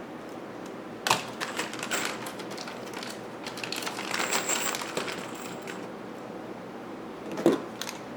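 Wooden chair parts and hardware being handled during assembly: a sharp knock about a second in and another near the end, with scraping and clattering between.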